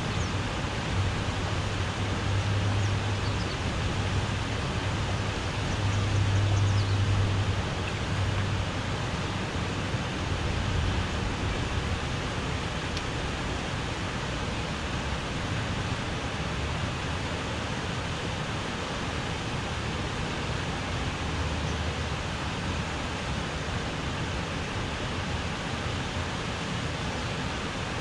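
Low rumble of traffic crossing the bridge overhead, swelling to its loudest about six to seven seconds in and fading by about eleven seconds, over a steady rushing hiss of outdoor noise that continues to the end.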